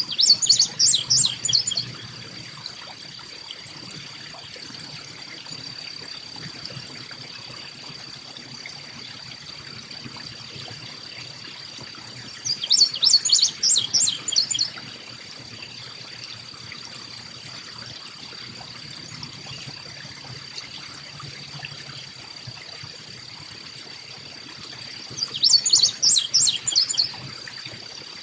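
A small songbird calling three times, each a burst of rapid high notes about two seconds long, about twelve seconds apart. Under it runs a steady high-pitched tone and an even background hiss.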